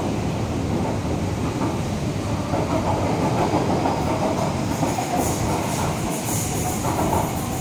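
MTR East Rail Line electric train running along the platform, a steady rumble of steel wheels on rail with a clickety-clack, and faint high clicks and hiss about five seconds in.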